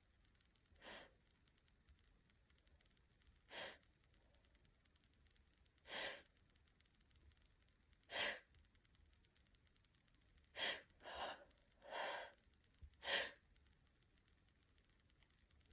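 Short, breathy sniffs and catches of breath through a tickly, congested nose, about eight of them a couple of seconds apart and bunching closer toward the end, as a sneeze builds after a dose of chhinkni sneezing snuff.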